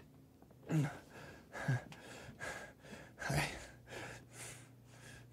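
A man breathing in short, sharp gasps, about two a second, with a few voiced grunts, in pain as the screws of a halo brace are turned out of his skull without anesthetic.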